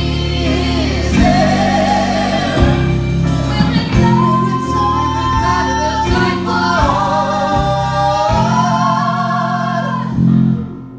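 Closing bars of a gospel-tinged musical-theatre song: voices singing in harmony over instrumental accompaniment, holding long final notes before the music stops about ten and a half seconds in.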